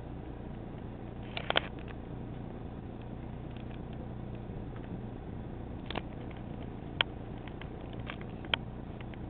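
Steady low machine hum, with a handful of sharp clicks scattered through it, the loudest one about seven seconds in.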